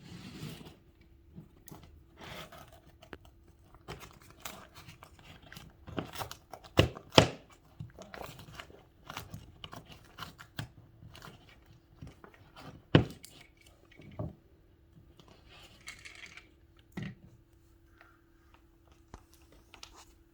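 Hands working inside a wall cavity, pushing fiberglass insulation aside: intermittent rustling and crunching with a few sharp knocks, the loudest about seven and thirteen seconds in.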